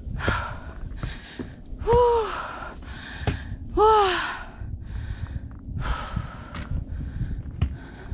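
A hiker's heavy breathing: out of breath after climbing steep steps, with a series of breathy puffs about once a second, two of them voiced gasps that fall in pitch.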